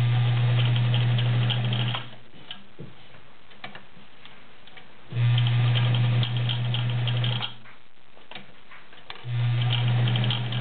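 Vintage all-metal Kenmore 1217 sewing machine running in three spurts of about two seconds each, a steady motor hum with a rattling needle clatter, as it stitches through six layers of denim.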